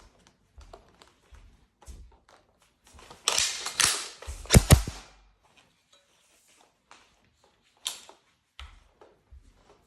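Airsoft guns firing in short, scattered shots with clicks and knocks. There is a louder flurry about three to five seconds in that peaks in two sharp cracks.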